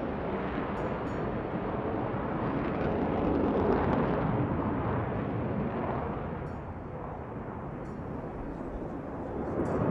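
Aircraft engine noise at an airfield: a steady rushing roar that swells about four seconds in, eases off, then rises again near the end.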